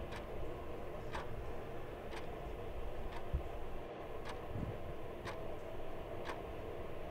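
Ticking about once a second, steady and even, as of a clock, over a steady low background noise.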